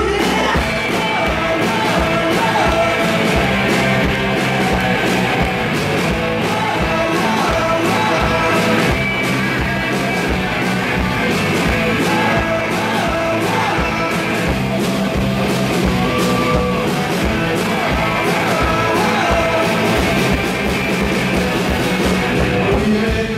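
Live rock band playing: distorted electric guitars, bass and drums driving along steadily under sung and shouted vocals.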